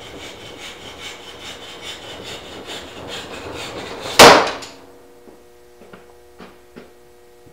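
Hand sawing of wood with a coarse-toothed bow saw, the piece held in a bench vise: even rasping strokes at about three a second. About four seconds in there is a single loud knock, after which the sawing stops and only a few faint clicks follow.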